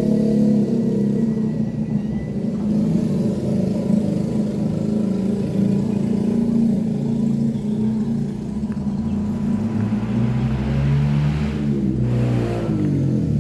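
An engine running steadily, with a vehicle going by near the end, its pitch falling away.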